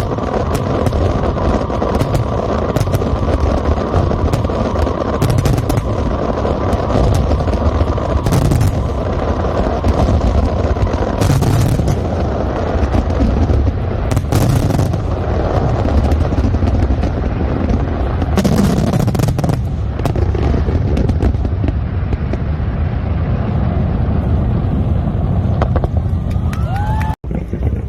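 Fireworks display: a run of booms and crackling bursts over a steady low rumble. The sound cuts out for a moment near the end, followed by a short rising whistle.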